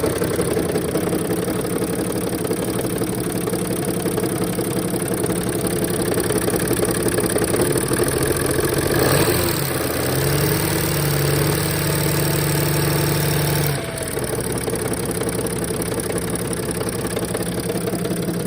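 Mercedes OM642 3.0-litre V6 turbodiesel in a 2007 Sprinter running with the accessory belt off. It carries knocking and chatter that the owner suspects come from injector knock, heavy gear chatter or the torque converter in the transmission bell housing, along with an exhaust leak. About halfway through a higher steady tone rises in, holds for about four seconds, then cuts off suddenly.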